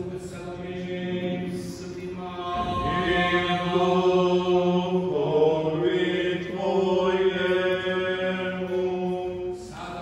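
Serbian Orthodox liturgical chanting: slow sung notes, each held for a long time, louder through the middle, with a second voice overlapping briefly.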